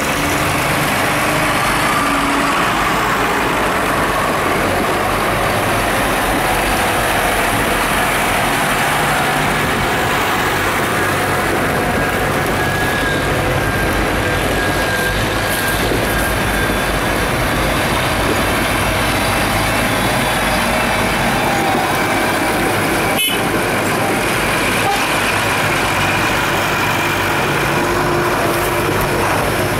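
Diesel engines of a procession of farm tractors running steadily as they drive past one after another over a stony track. One sharp click about three-quarters of the way through.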